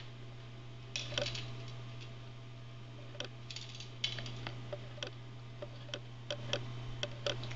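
Teddy bear hamster picking through a pile of seeds and pellets and stuffing them into its cheek pouches: irregular small clicks and crackles, sparse at first and more frequent after about three seconds.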